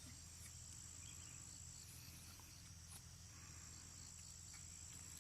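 Faint, steady high-pitched trill of crickets, over a low background hum.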